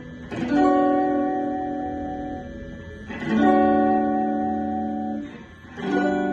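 A guitar strumming three chords, one about every three seconds, each left to ring out and fade before the next.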